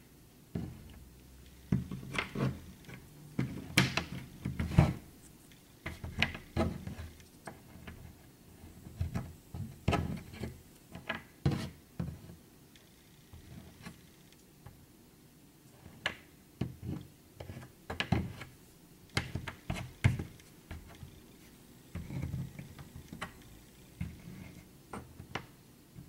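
Cardboard jigsaw puzzle pieces being picked up, slid and set down on a tabletop by hand: irregular light clicks and taps in clusters, with a short pause in the middle.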